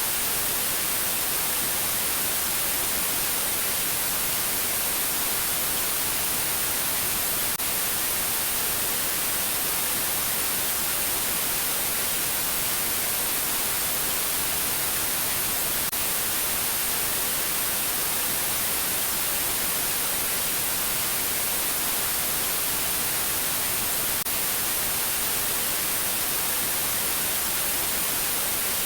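Television static: a steady, even hiss of white noise, loud and unchanging, that cuts in abruptly, as a broadcast goes off the air.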